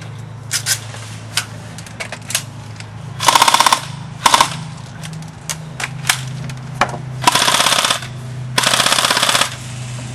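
Airsoft electric rifles firing: scattered single shots, then several rapid full-auto bursts of about half a second to a second each, the longest near the end.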